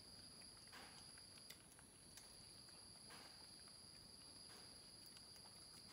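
Near silence: a faint steady high-pitched whine, with a few soft rustles and light taps from handling.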